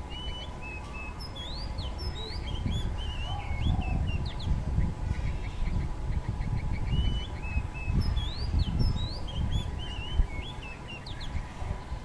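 Bulbul singing: two phrases of quick, rising and falling whistled notes, the second starting about seven seconds in. A low rumble runs underneath, with a faint steady hum.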